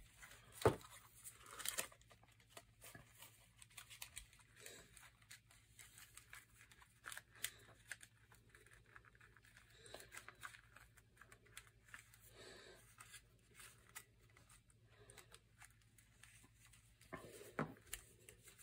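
Faint handling noise: small clicks and rustles of plastic model-kit hull parts and their LED wires being fitted together by hand, with a few louder clicks near the start and near the end.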